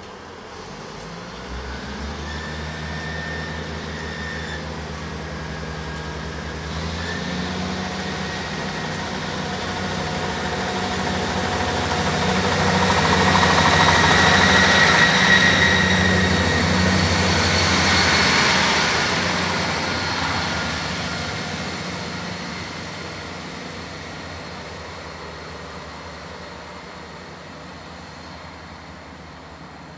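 Class 158 diesel multiple unit passing through a station. The underfloor diesel engines drone, building up as the train approaches. Engine and wheel-on-rail noise is loudest as the coaches go by, a little past the middle, then fades as it runs away.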